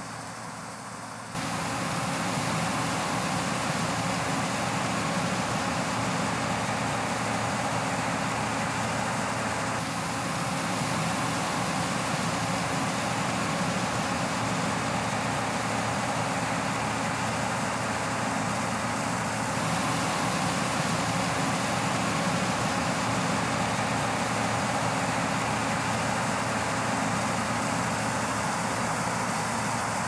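A New Holland TR86 combine running steadily while harvesting corn, its diesel engine and threshing machinery making a constant drone that gets louder about a second in.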